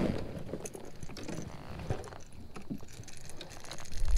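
Small scattered clicks and rustling of fishing tackle being handled in a kayak.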